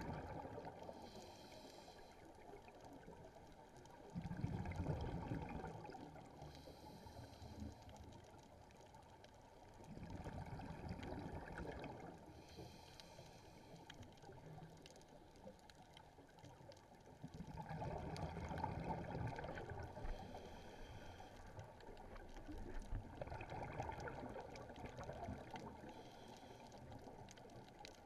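Scuba diver breathing through a regulator underwater: a burst of bubbling exhaust about every six seconds, with a fainter hiss of inhalation between the bursts.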